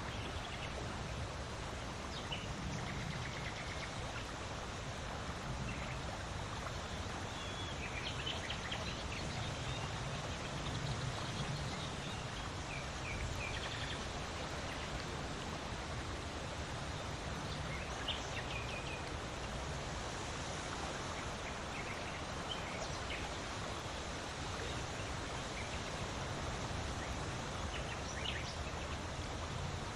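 Steady wind blowing, an even rush with slow low swells. A few brief, faint high chirps are scattered through it.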